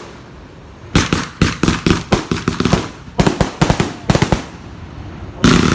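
260-shot firework cake firing: a rapid string of sharp bangs and cracks, several a second, then a louder burst near the end.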